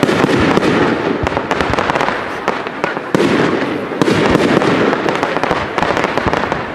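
Fireworks display: aerial shells bursting over a dense crackle of many small pops, with fresh bursts about three and four seconds in.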